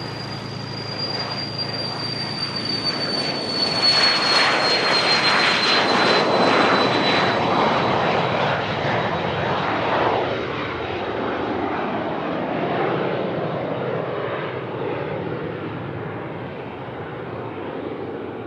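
Business jet's turbofan engines passing close by: a high whine that slowly drops in pitch over a broad roar, which swells to its loudest a few seconds in and then fades.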